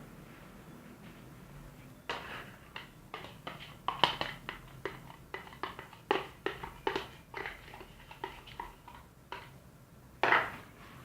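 Homemade glue-and-detergent slime being worked in a container. A run of short, wet squelches and clicks comes at about two or three a second, with a louder one near the end.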